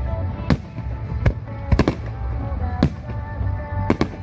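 Fireworks bursting in a string of sharp bangs, about seven in four seconds, some in quick pairs, over background music.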